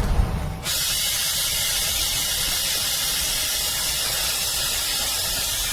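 Brushless cordless chainsaw running at full speed: a steady, high hiss from the chain and motor that starts abruptly just under a second in and cuts off near the end.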